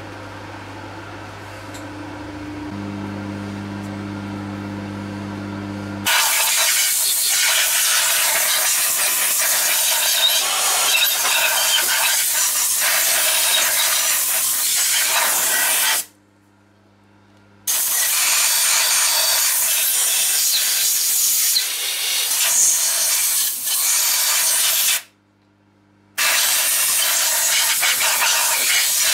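Compressed-air blow gun blasting swarf off a freshly milled cylinder head: a loud hiss starting about six seconds in, in three long blasts with two short breaks. Before the air, a steady electric hum.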